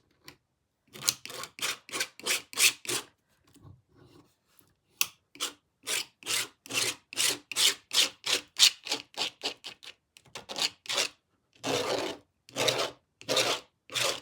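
Paint being scraped across a jigsaw puzzle's surface in quick rasping strokes, a few a second, with a couple of short pauses and longer strokes near the end.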